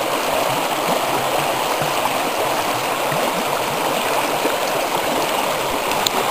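The Lower Deschutes River flowing: a steady, even rush of moving water.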